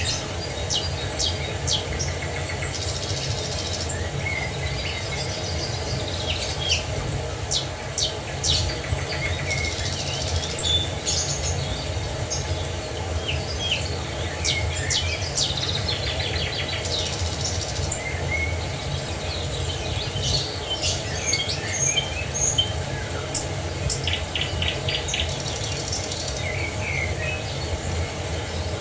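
Several songbirds chirping, trilling and whistling over the steady low rush of a waterfall.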